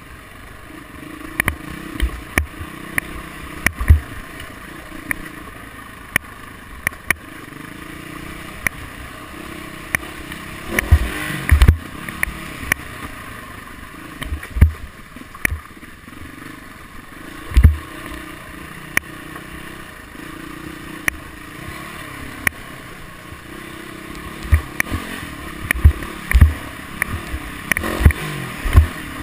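Dirt bike engine running along a rough trail, its note rising and falling with the throttle. Frequent sharp thumps are heard as bumps jolt the mounted camera.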